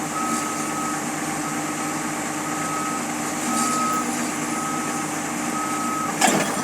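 Heavy machine's backup alarm beeping about once a second over its steady running engine, with one sharp metallic knock near the end.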